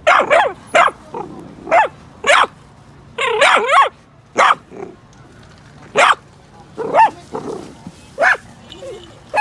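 A dog barking, about ten short barks spaced irregularly, with a quick run of several barks a little past three seconds in.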